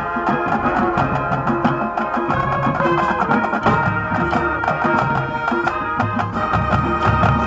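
Marching band playing on the field: brass and woodwinds holding chords over a drumline and sideline percussion, with many sharp drum strokes.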